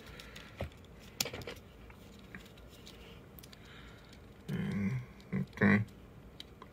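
A few clicks, then a person's low voice in three short grunts or mumbles starting about four and a half seconds in.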